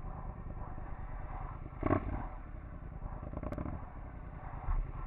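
Triumph Scrambler's parallel-twin engine running at low revs as the motorcycle rolls slowly, a steady low pulsing rumble. A brief louder burst comes about two seconds in.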